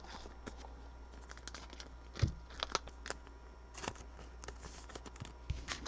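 Trading cards being handled and laid down on a table: soft rustling and light clicks, with a sharper tap about two seconds in and another near the end.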